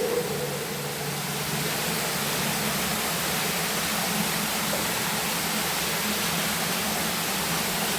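Steady rushing hiss with a faint low hum underneath, unchanging throughout.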